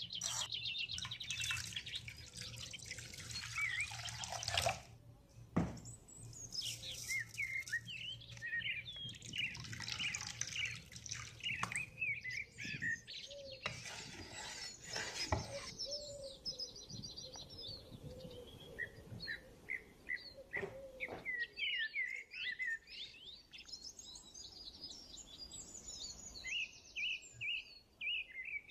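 Birds chirping and singing almost without a break, many short, quick calls. A low steady hum underneath stops about twelve seconds in, and a few short knocks come in the middle.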